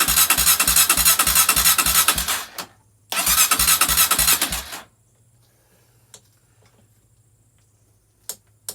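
Honda CRF230F's single-cylinder engine cranked on the electric starter, a steady beat of about five compression strokes a second, in two bursts with a brief gap between them. It doesn't catch, and the cranking stops a little under five seconds in, followed by a few faint clicks.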